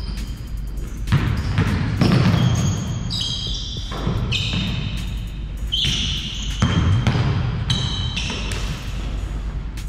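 Basketball bouncing on an indoor court, with thuds coming about once a second, and sneakers squeaking in short, high-pitched chirps on the floor throughout.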